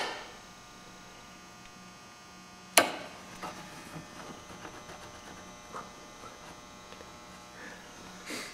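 A steady low electrical hum, broken by a few sharp clicks: one at the start, a louder one just under three seconds in, and a softer one near the end.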